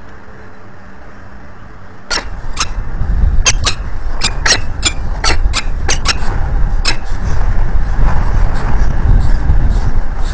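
A quiet steady hum, then a sudden change to wind rumbling heavily on the nest-ledge microphone. Over it comes a run of short, sharp sounds, about two a second, from a peregrine falcon on the gravel ledge, thinning out after about seven seconds.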